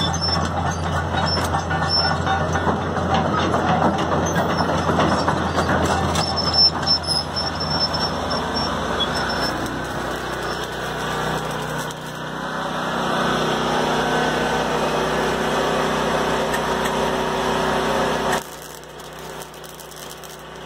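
Hitachi EX270LC-5 excavator's diesel engine running steadily. Past the middle a different steady machine hum takes over, then cuts off abruptly near the end, leaving a fainter noise.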